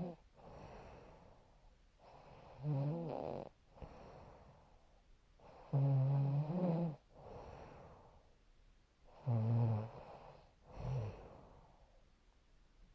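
A woman snoring in her sleep: three loud, wavering snores a few seconds apart, with softer breathy breaths between them.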